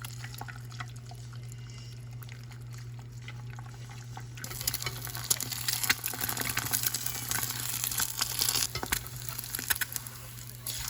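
Food sizzling and crackling in a frying pan. It starts suddenly about four seconds in and drops off near the end, over a steady low hum.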